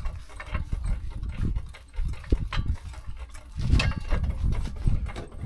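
Hydraulic trolley jack being pumped by its long handle to lift the rear of a camper trailer: an uneven series of low pumping strokes with sharp knocks.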